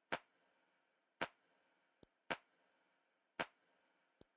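Sharp clicks at a steady pace of about one a second, each with a short fading tail, with a fainter click just before some of them.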